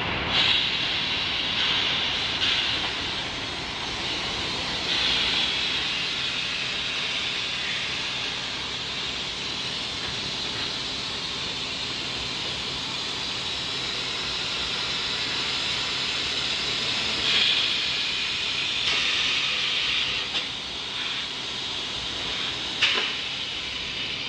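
Concrete kerb stone and paver block making press running, a steady machine noise with louder hissing spells several times as it moulds kerb stones on a steel pallet.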